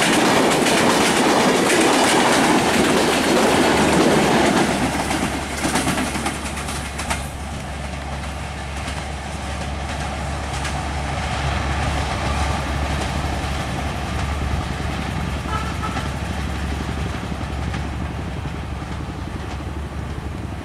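Passenger train coaches rushing past at speed, wheels rattling over the rails. After about four seconds the sound drops to a quieter, steady rumble with a constant low hum as a train runs away down the line.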